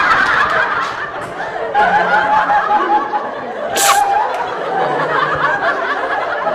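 People laughing and chattering, with a short hissing burst about four seconds in.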